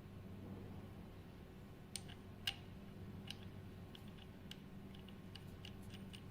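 Faint, scattered clicks and taps of small metal parts and an Allen key as the barrel clamp and pressure gauge are refitted to a PCP air rifle, the sharpest about two and a half seconds in, over a low steady hum.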